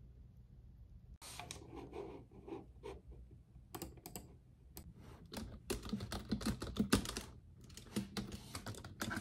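Typing on a computer keyboard: rapid key clicks in irregular runs with short pauses, starting about a second in and growing busier in the second half.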